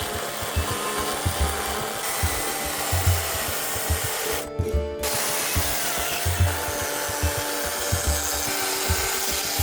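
Chainsaw cutting into a wooden log for carving, heard under background music with a steady beat. The saw noise drops out briefly about halfway through.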